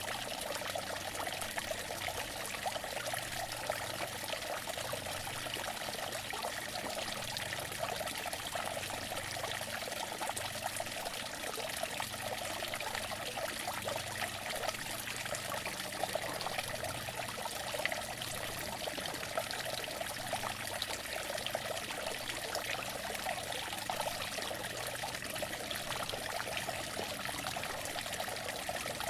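Outdoor water fountain running: a steady splashing trickle of falling water.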